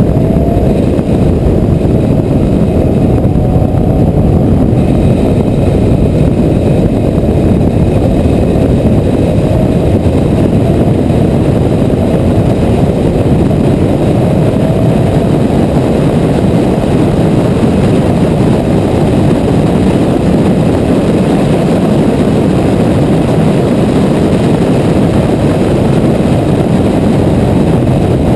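Car on a race track at speed, heard from an onboard camera: a steady loud rush of wind and road noise, with the engine note faintly rising in pitch several times as the car accelerates.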